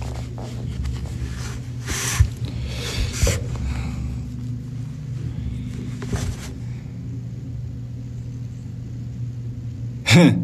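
A steady low hum, with several short rustles of a cotton hoodie and hands brushing against a cap as a person adjusts it and moves their arms. A short vocal sound near the end.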